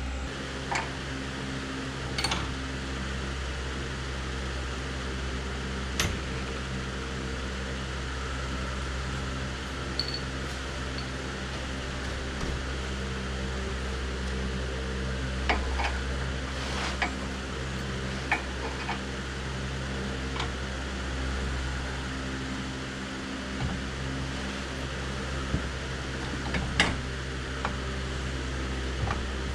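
A steady electric motor hum, like a running fan, fills the garage, with a dozen or so light clicks and knocks of tools and hardware being handled scattered through it.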